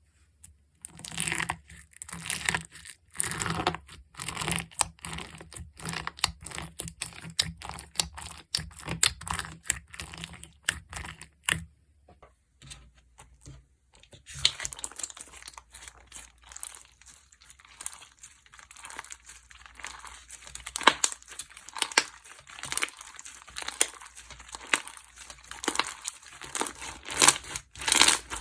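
Slime being handled and pressed by hand: a quick run of sticky crackling clicks and pops, a pause of about two seconds, then denser crackling.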